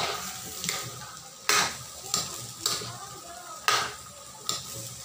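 Metal spatula scraping and clanking against a metal wok while stir-frying pork and vegetables, over a steady sizzle. About seven sharp strikes come at uneven intervals, the loudest about a third of the way in and again near three-quarters.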